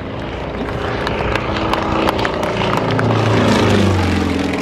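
Single-engine propeller aerobatic plane flying past. Its engine grows louder, then drops in pitch near the end as it goes by.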